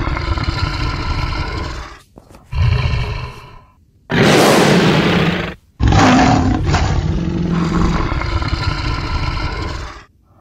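Dinosaur roar sound effect, four roars in a row: a long growl, a short one, a loud harsh one, then a long roar that fades out near the end.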